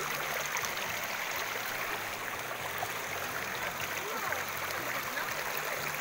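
Shallow stream running over rocks: a steady rush of water, with faint voices underneath.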